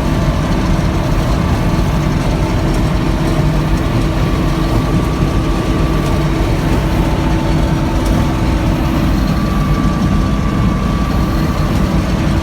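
Large harvest machine's engine running steadily: a constant low drone with a few steady higher tones above it.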